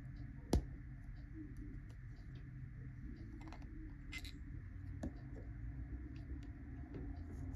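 Small clicks and ticks of a fountain pen's threaded resin cap being unscrewed by hand: one sharp click about half a second in, then a few faint ticks. A low steady hum runs underneath.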